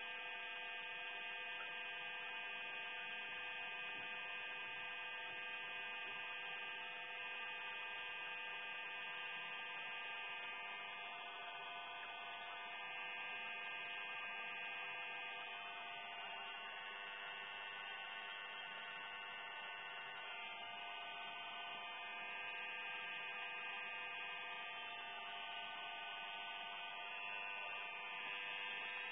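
Steady electrical hum with a rough buzzing edge from an oxyhydrogen (HHO) torch rig running with its small flame lit, the generator drawing about 13 A. It holds one even level with no breaks.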